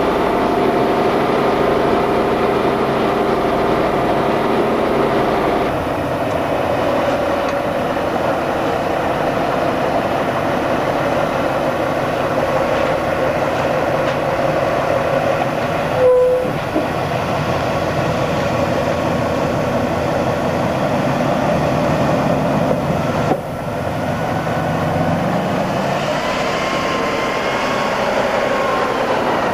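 Tatra 813 Kolos's air-cooled V12 diesel engine running under load off-road, heard inside the cab at first and then from outside as the truck works through a ditch. Its pitch rises and falls near the end. A short beep-like tone cuts in about halfway.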